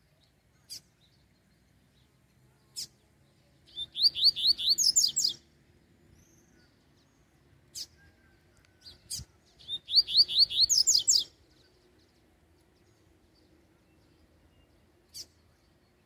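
Double-collared seedeater (coleiro) singing: two phrases a few seconds apart, each a fast run of high notes climbing in pitch and lasting about a second and a half. Single sharp call notes are scattered between them.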